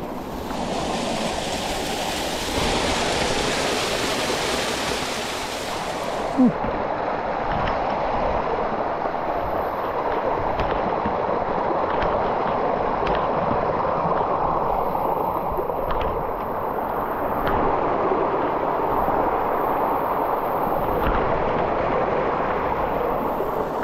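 Mountain stream rushing steadily over rocks, with a brighter splashing hiss that drops away about six seconds in. A single short sharp knock sounds about six and a half seconds in, and a few faint clicks follow later.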